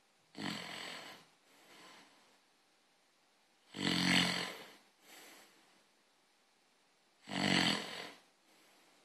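Snoring: three loud snores about three and a half seconds apart, each lasting about a second and followed by a fainter breath out.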